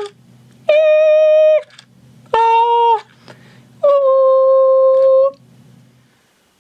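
Four long held notes from a person's voice, each at a steady pitch except the first, which slides down. They are sounded at a sound-activated animatronic bear to set it moving. A faint low hum and a few light clicks come between the notes, and the hum stops near the end.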